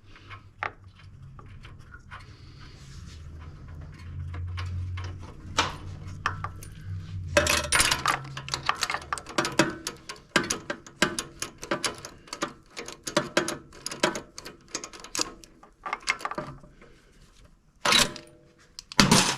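Metal hand tools clicking and clinking in dense runs of sharp taps as a spark plug is threaded back into a small snowblower engine. A low steady hum runs through the first several seconds and fades out about eight seconds in.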